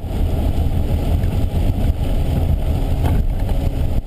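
Low, steady rumble of a car driving on a wet highway, heard from inside the cabin: road and engine noise.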